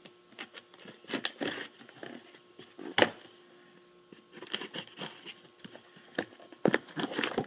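Pocketknife blade scraping and cutting at packing tape on a cardboard shipping box, with scattered scrapes, taps and crinkles as the box is handled; one sharp tap about three seconds in.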